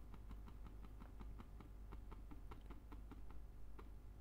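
Faint computer mouse clicks repeated rapidly, about four to five a second, as a font-size spinner arrow is clicked again and again.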